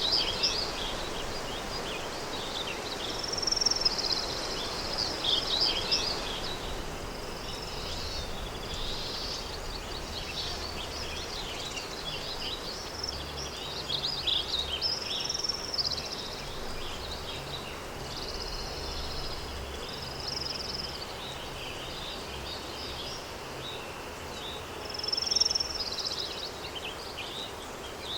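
Countryside daytime ambience: many small birds chirping and singing in quick high phrases over a steady soft background hiss of wind and distant outdoor air, with a few louder bursts of song around 4–6 s in and about 25 s in.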